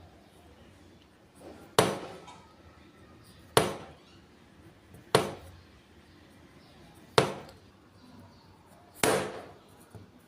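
Five sharp impacts about two seconds apart, each dying away quickly.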